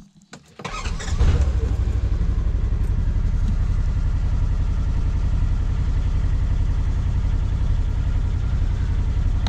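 2019 Polaris Ranger Crew 1000 XP's twin-cylinder engine starting: it cranks briefly and catches about a second in, then settles into a steady idle.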